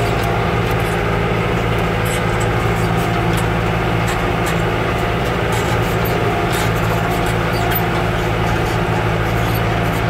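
Yanmar EG83Y tractor's diesel engine running steadily under load while pulling a mouldboard plow through the field.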